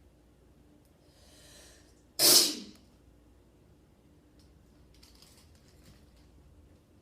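A person sneezing once: a soft breathy lead-in about a second in, then a single loud, sharp sneeze a little after two seconds that dies away within about half a second.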